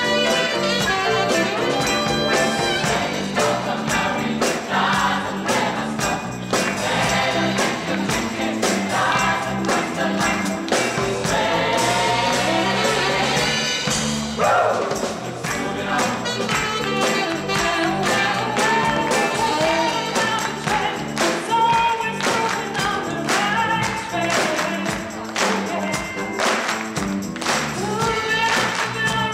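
A mixed choir singing a gospel song live, backed by a band with drum kit and electric bass keeping a steady beat.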